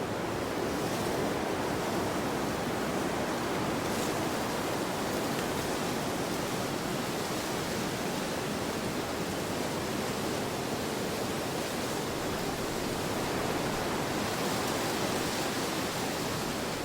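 Wind blowing steadily during a snowfall: an even rushing noise with only slight swells and no separate events.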